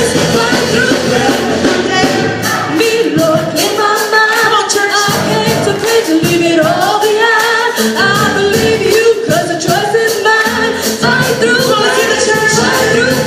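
Live church worship music: voices singing a song over keyboard accompaniment, with a steady beat of drum strikes.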